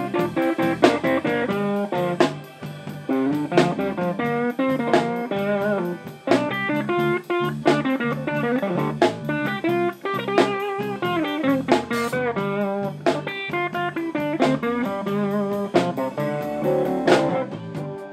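Live blues band playing: an electric guitar plays lead lines over bass guitar and a drum kit keeping a steady beat.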